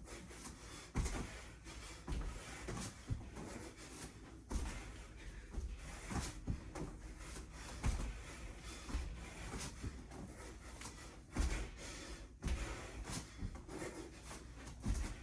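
A person doing burpees: repeated thuds of hands and feet landing on the floor, a heavy thump every couple of seconds, with hard breathing between them.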